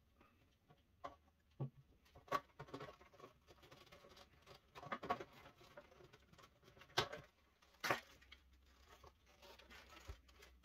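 Faint handling noise of a plastic refrigerator water-filter assembly as thin light wires are pressed into its track: light rustling with scattered small plastic clicks, two sharper clicks about seven and eight seconds in.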